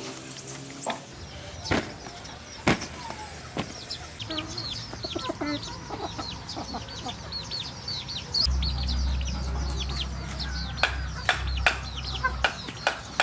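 Chickens clucking with small birds chirping, a quick run of high calls through the middle. A low hum runs for a few seconds in the second half, and near the end a large knife chops on a wooden block in a series of sharp knocks.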